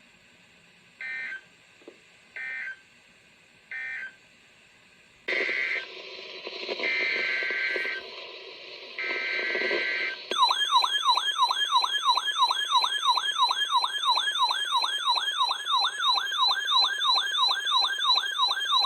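Emergency Alert System data tones. First come three short buzzy bursts, the end-of-message code. About five seconds in, three longer, louder bursts follow: the next alert's header. From about ten seconds in, a loud siren-like attention tone warbles up and down about three times a second.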